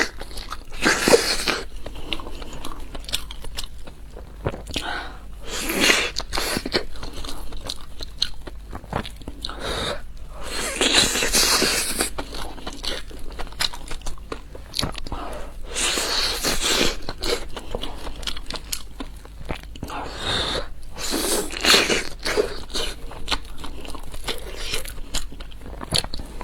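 Close-miked eating sounds: crunchy bites and chewing in clusters every few seconds, with many small wet clicks in between.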